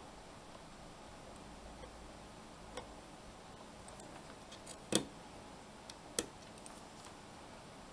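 A few sharp plastic clicks of the DSO138 oscilloscope board's small slide switches being flipped by hand, a light one near three seconds in and the two loudest about five and six seconds in, over faint steady hiss.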